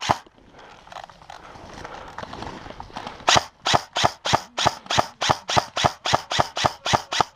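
Airsoft rifle firing a steady string of single shots, about three a second, sharp cracks starting about three seconds in and running on past a dozen shots.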